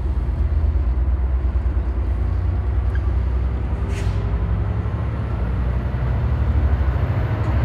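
Metra commuter train of stainless-steel bilevel gallery cars rolling slowly past, a steady low rumble of wheels and running gear on the rails, with a short hiss about four seconds in.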